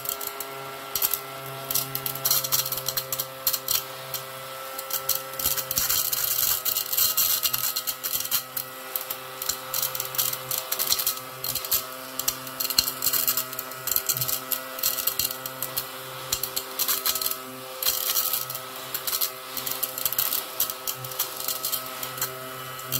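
Pink cat-shaped mini desktop vacuum cleaner for diamond painting running with a steady motor hum, while the small plastic diamond-painting beads rattle and click as they are sucked up into it.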